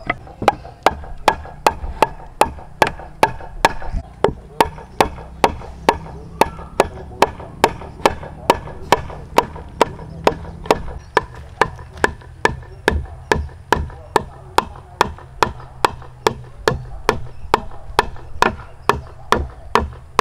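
Wooden mallet striking a wooden frame joint in an even rhythm, about two to three knocks a second, driving the interlocking corner joint home.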